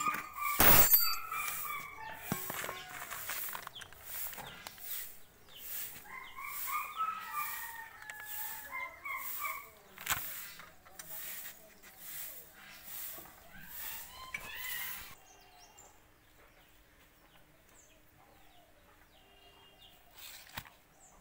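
Domestic chickens clucking and calling, over a run of sharp ticks about two a second that stops about fifteen seconds in. A sharp knock about a second in is the loudest sound.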